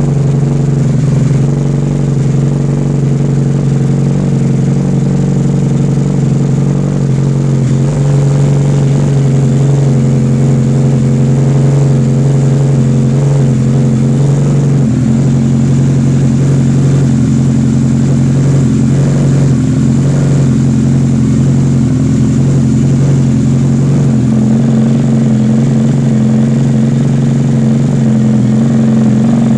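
Loud, steady mechanical hum, engine-like, holding one pitch with a slight shift in tone a few times.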